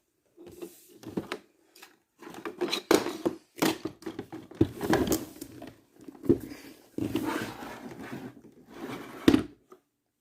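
Irregular knocks, clicks and scrapes of something being handled, with several sharp knocks standing out.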